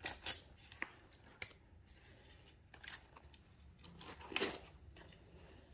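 Handling noise from a scaled costume gauntlet gripping a lightsaber hilt: scattered light clicks and clinks, with a short scrape about four and a half seconds in.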